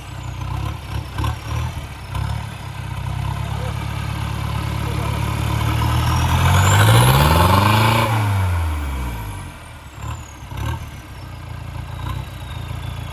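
Mahindra Bolero pickup's turbodiesel engine running through its opened-up stock exhaust, with the silencer mesh removed. It idles, then is revved once around the middle: the note climbs for a couple of seconds and falls back to idle, with a high whistle rising with the rev and falling after it.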